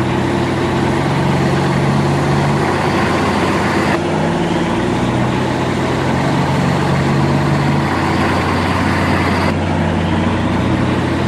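Dump truck engine running steadily, a recording that jumps abruptly about four seconds in and again near the end, as if looped.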